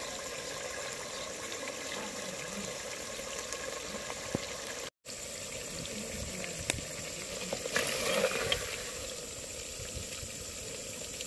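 Mutton sizzling and bubbling in a clay pot, with a wooden spoon stirring and scraping and a few sharp clicks. The sound cuts out for a moment about five seconds in.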